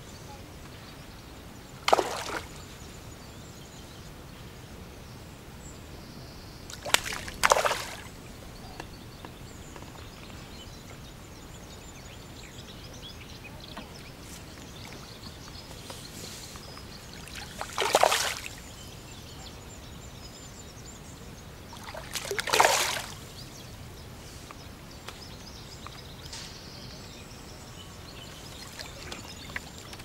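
Five short water splashes, two of them close together, as a hooked F1 carp thrashes at the surface while being played on a pole, over a faint steady outdoor hiss.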